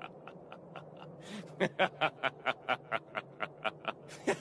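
A person's quiet, breathy laughter: a run of short puffs at about four to five a second, growing louder about a second and a half in.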